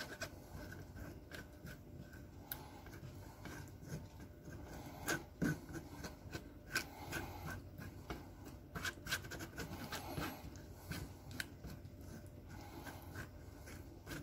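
Wooden spoon scraping and pressing a thick puréed sauce through a stainless steel mesh sieve: a faint, irregular run of rubbing scrapes with a few sharper knocks about five to seven seconds in and again near nine seconds.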